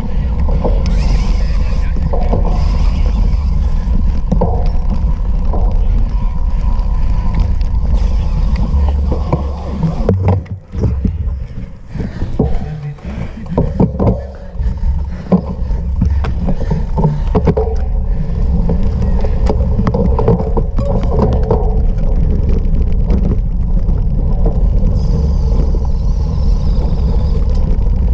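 Wind rumbling on the microphone of a bicycle ridden in an offroad race, with the bike clicking and rattling over rough ground. The rumble eases for a few seconds about a third of the way in, leaving uneven clicks and knocks, then returns.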